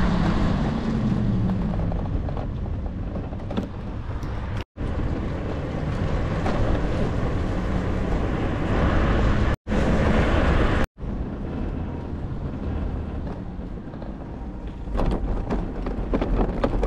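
Quadcopter drone's motors and propellers running, heard with wind rushing over the microphone, a low hum that slides down in pitch near the start. The sound cuts out abruptly three times and comes straight back.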